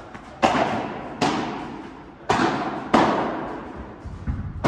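Padel rally: sharp pops of the ball off rackets, court and glass walls, four strikes about a second apart and then softer knocks near the end, each ringing on in a large echoing hall.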